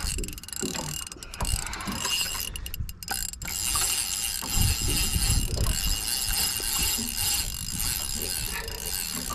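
A large spinning reel clicking and whirring under heavy load as line is cranked in and the drag gives line to a big cobia pulling hard.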